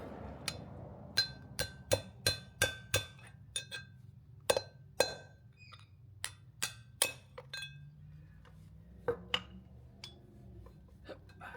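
Hammer blows knocking the old inner wheel bearing and grease seal out of a caravan wheel hub, each strike a sharp metallic clink with a short ring. There is a quick run of about fifteen blows, then a few more, spaced out, near the end.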